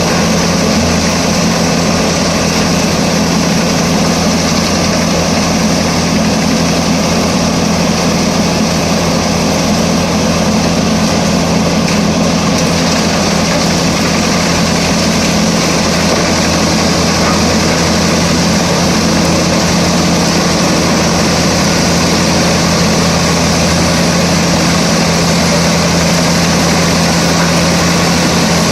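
Pezzolato PTH 900 M drum wood chipper running at a steady, unchanging speed, driven by its IVECO C10ENTX diesel engine.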